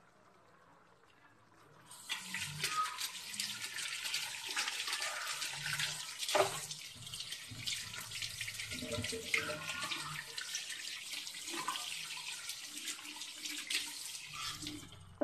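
Water running steadily with a splashing hiss, starting about two seconds in and stopping abruptly near the end.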